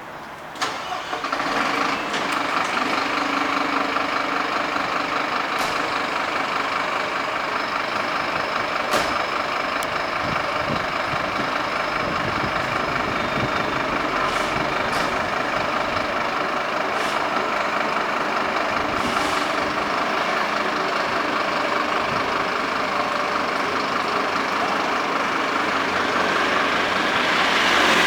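Fire engine's diesel engine starting about a second in and then running steadily at idle, with a few sharp clicks and knocks over it; it gets louder near the end.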